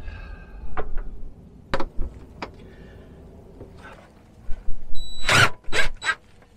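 Scattered clicks and knocks from batteries and cables being handled and connected inside a metal storage compartment, with a louder clatter about five seconds in.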